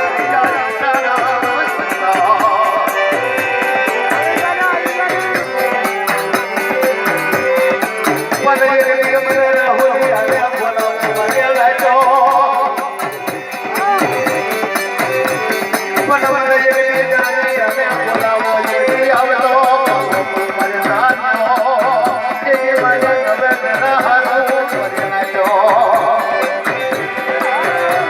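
Gujarati dakla folk music: a wavering melody line over a steady drum beat of about two strokes a second, with rattling percussion.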